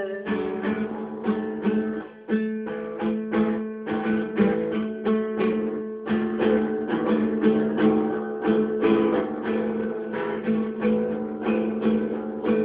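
Instrumental break of a corrido: an acoustic guitar strummed in a steady rhythm, with no singing.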